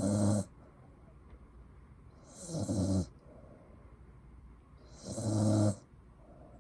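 A sleeping corgi snoring in slow, regular snores, one about every two and a half seconds.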